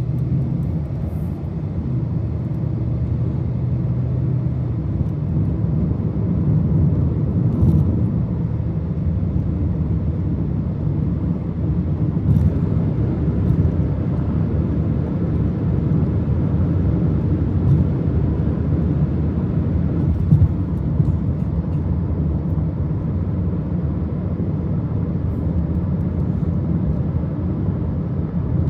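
Car driving: a steady low rumble of road and engine noise, with a few faint ticks.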